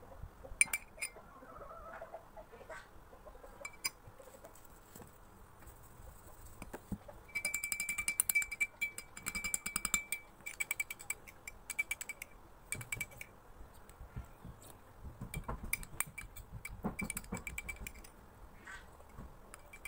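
Metal spoon beating an egg with soy sauce and pepper in a glass mug, clinking fast against the glass with a ringing tone. The clinking is densest in a run about seven to ten seconds in, then comes in shorter runs.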